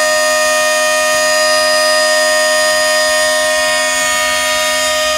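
Air horn of a Transnet Class 45 diesel locomotive sounding one long steady blast, several notes at once, heard from inside the cab.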